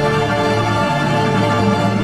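Background music with sustained tones, steady throughout.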